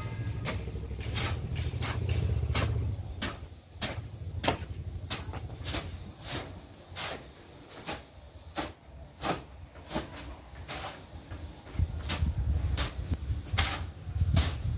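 Steel shovel scraping and chopping through a semi-dry sand-and-binder screed mix on a concrete floor, in short repeated strokes about one or two a second. A low rumble runs under the first few seconds and again near the end.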